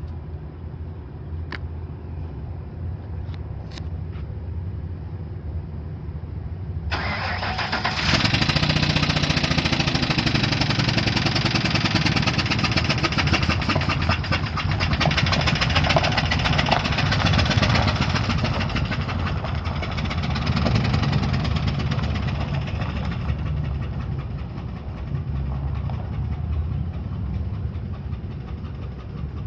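A Ford 4.6-litre V8 running steadily at a low idle, then about seven seconds in becoming much louder and harsher and staying loud until roughly two-thirds of the way through before easing. The truck is listed with its number five spark plug blown out, a fault that leaves one cylinder puffing straight out of the head.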